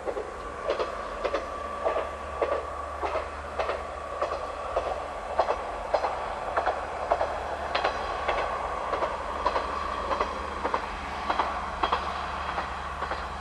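KiHa 120 single-car diesel railcar running at a distance, its wheels clicking over rail joints in an even rhythm, nearly twice a second, over a steady low hum.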